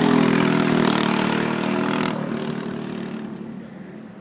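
Go-kart engine running hard as the kart passes close by, then fading as it drives away down the track, with a sudden drop in level about two seconds in.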